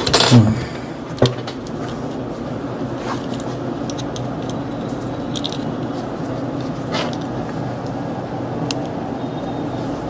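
A loud knock just after the start, a sharp click about a second in and a few lighter clicks later, over a steady low hum: hands handling an opened phone and its parts on a repair bench.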